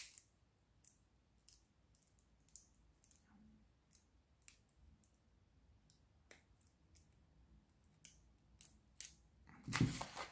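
Faint, scattered clicks of small 3D-printed plastic pieces being worked with small pliers. Near the end comes a louder rustle of a sheet of paper being lifted.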